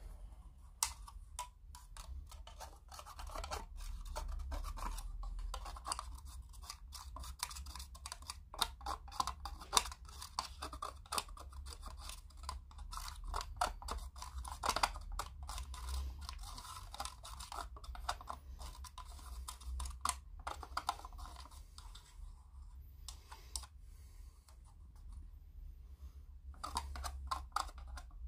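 A paint stirrer scraping and clicking against the inside of a small paint pot as thinned model paint is mixed: a quick, irregular scratching that goes on with short pauses and eases off for a few seconds before the end, over a faint steady hum.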